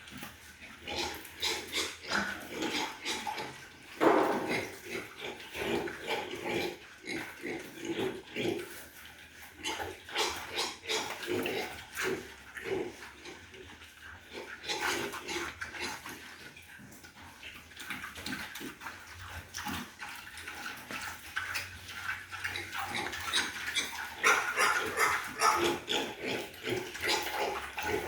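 Pigs grunting and squealing in a busy, irregular stream of short calls. There is a loud burst about four seconds in and more loud squeals near the end.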